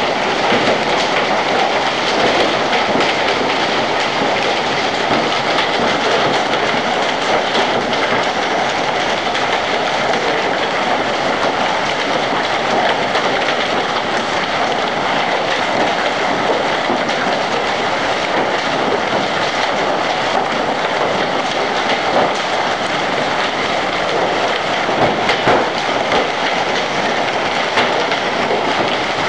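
Heavy hailstorm: a dense, steady clatter of hailstones pelting the street and surrounding surfaces.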